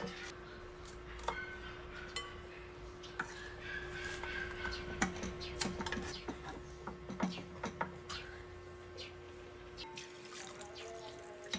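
Soft background music with a steady held tone. Scattered light clinks and knocks of kitchen utensils run under it, most of them in the middle of the stretch.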